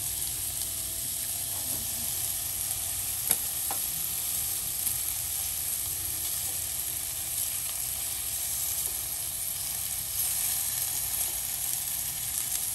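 Ribs sizzling steadily on the grate of a Chefman electric indoor grill, with a few light clicks from metal tongs turning them, the sharpest about three seconds in.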